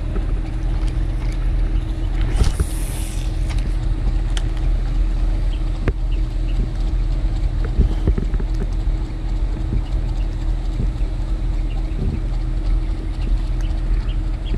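A motor runs steadily with a low, even hum, with light wind on the microphone. A brief hiss comes about two and a half seconds in.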